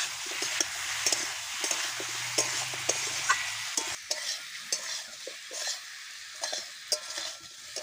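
Vegetable chunks sizzling in hot oil in a metal kadai while a flat spatula stirs them. The spatula scrapes and knocks against the pan several times a second over a steady frying hiss.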